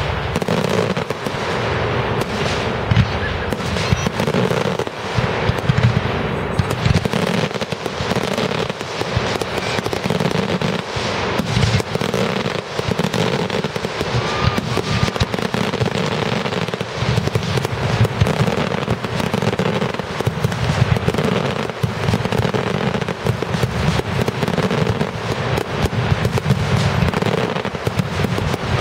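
Aerial firework shells bursting one after another in a dense, unbroken barrage of overlapping bangs.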